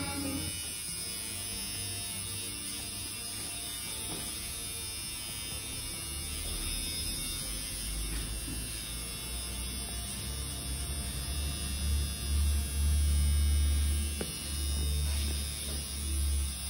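A low electric buzzing hum that grows loud about halfway through, swells and cuts in and out toward the end, over faint background music.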